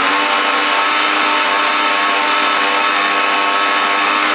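Countertop blender motor running steadily at full speed, puréeing a thick wet jerk seasoning paste of onion, spring onion, thyme, pepper and garlic. Its whine holds one pitch throughout.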